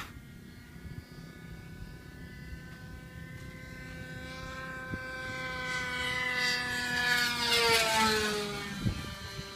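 OS .46 two-stroke glow engine of a radio-controlled model airplane buzzing in flight. It grows steadily louder as the plane comes in, then its pitch drops about eight seconds in as it flies past, and it carries on at a lower steady pitch. A short thump comes just after the pass.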